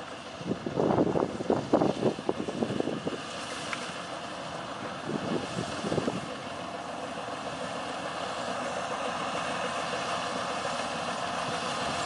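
FM World combine harvester running steadily as it cuts rice, an even engine and machine noise. Loud irregular bursts, like wind buffeting the microphone, cover it for the first three seconds.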